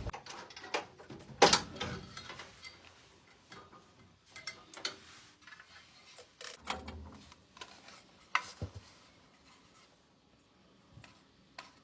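Scattered clicks, knocks and light rattles of tools and metal parts being handled during furnace gas valve work, with the loudest knocks about a second and a half in and about eight seconds in. The sounds fade to a few faint ticks near the end.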